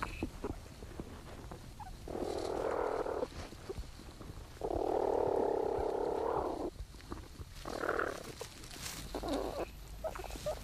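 Platypus mother and young in their nesting burrow, heard through a microphone inside the burrow: several noisy, rasping bursts without a clear pitch, the longest about two seconds, made as the young suckle.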